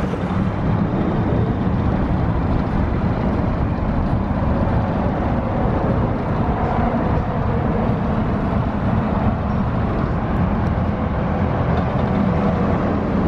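Jet ski engine running steadily.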